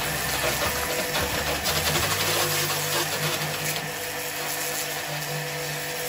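Small electric high-pressure washer pump running with the hiss of its water jet spraying an air conditioner's outdoor condenser unit. The spray hiss eases about four seconds in while the motor keeps humming.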